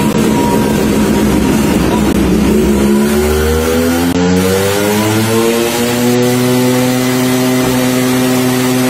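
Two-stroke Yamaha RX motorcycle engine, fitted with an Allied aftermarket CDI, revving out in a dyno pull. After a low rumble its pitch climbs steadily from about three seconds in and holds high near the end.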